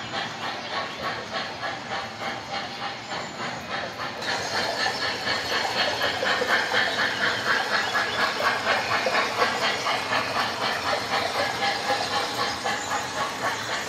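An O scale model steam locomotive's onboard sound system plays a steady chuffing, about three chuffs a second, with wheels running on the track. The sound grows louder and brighter about four seconds in.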